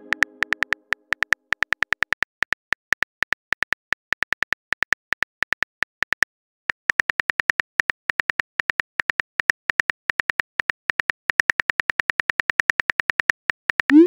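Smartphone keyboard typing clicks, fast and even, about five a second, with a brief pause a little before halfway through. It opens on the fading ring of a message chime, and near the end a short rising swoosh marks the message being sent.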